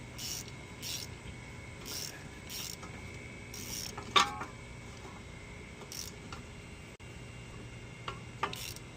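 Ratchet turning a Torx bit on the Ford Fusion's rear caliper parking-brake spindle in short strokes, winding the caliper piston back down for new pads. It makes repeated raspy clicking strokes, with one sharp metallic click about four seconds in.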